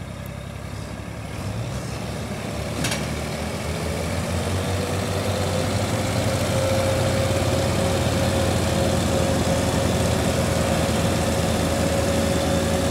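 Diesel farm tractor engines, a Massey Ferguson among them, running hard under heavy load while pulling a loaded sugarcane trolley. The engine drone grows louder over the first several seconds as the revs come up, then holds steady with a high whine, and there is one brief click about three seconds in.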